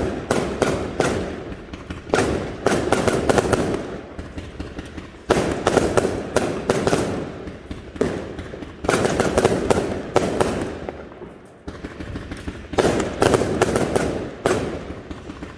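Aerial fireworks battery firing continuously: a rapid run of launch thumps and overlapping bangs as shells burst into white crackling stars. The bangs come in waves a few seconds apart, with a short lull about two thirds of the way through.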